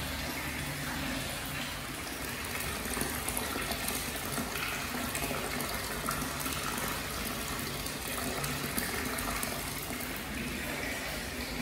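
Hot spring water pouring from a pipe spout into a tiled bath, a steady splashing stream.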